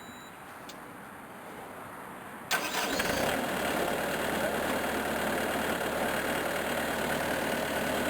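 Faint hiss, then about two and a half seconds in a skid-steer loader's engine comes in suddenly and runs steadily.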